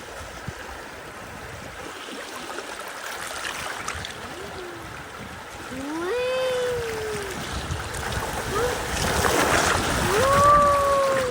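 River water flowing and splashing around a bamboo raft, growing louder near the end. A voice calls out twice in long, drawn-out cries, about six seconds in and again near the end.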